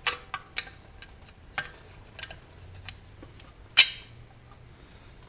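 Screwdriver and metal engine parts clicking and scraping as the breaker-point cam is pried off the crankshaft of an old REO lawn mower engine: a run of light clicks, with one sharper, ringing metal clink nearly four seconds in.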